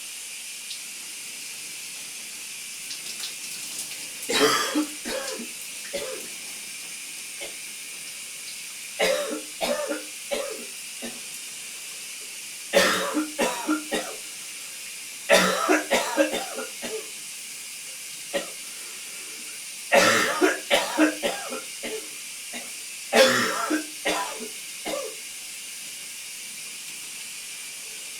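A man coughing in six fits of several hacking coughs each, over the steady hiss of a running shower.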